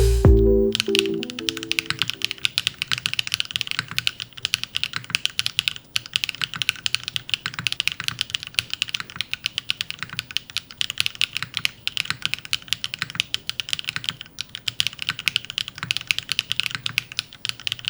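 Fast, continuous typing on a GDK LAB NV-70 custom mechanical keyboard with TTred switches and PBTfans Loki PBT keycaps: a dense run of keystroke clacks. Music fades out in the first couple of seconds.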